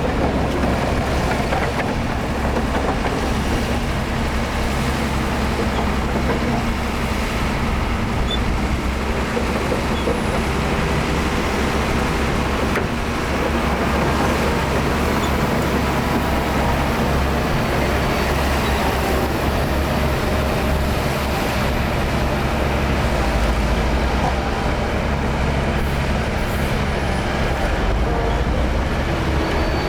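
Heavy diesel earthmoving machinery running under load: a steady, low engine drone.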